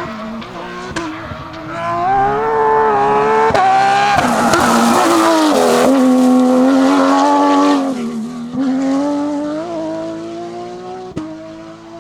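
Porsche 911 GT3 Cup's flat-six engine under hard acceleration, pitch climbing with breaks at the gear changes. It gets louder about two seconds in, holds at full throttle, then lifts off about eight seconds in before picking up and climbing again.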